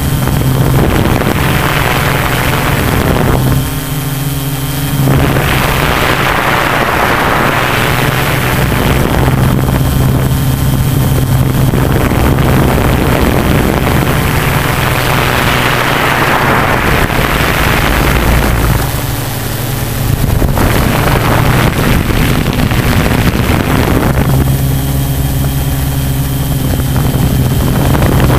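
Tarot 680 Pro hexacopter's six electric motors and propellers humming steadily in flight. Several stretches of rushing wind noise rise and fall over the hum.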